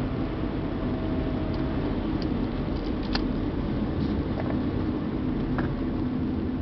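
Steady low hum of a stopped car idling, heard from inside the cabin, with a few faint ticks.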